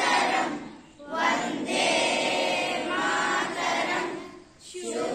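A group of young voices singing together in unison, in phrases broken by short pauses about a second in and near the end.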